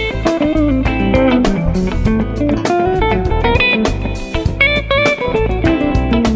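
Electric guitar improvising quick single-note lead lines from the B minor pentatonic over an A minor backing with a steady bass underneath, the superimposed scale that brings in the 9th and 6th for a Dorian colour.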